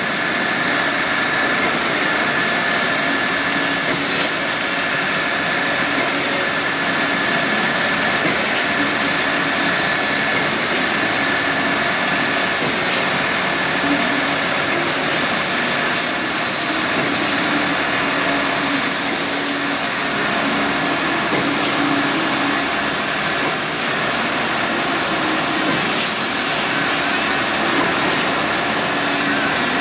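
Steady drone of construction machinery engines running without a break, with a faint held whine above it.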